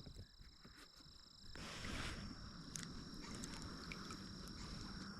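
Insects with a steady, high-pitched drone, joined about a second and a half in by a louder rushing noise that carries on.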